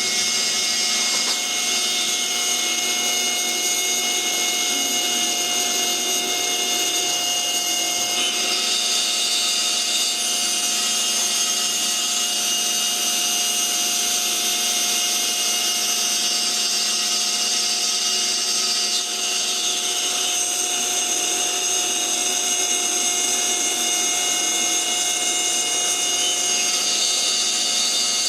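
CNC spindle running steadily with a high whine while its small cutter machines a wooden ring insert; the cutting noise changes in tone a couple of times as the cut goes on.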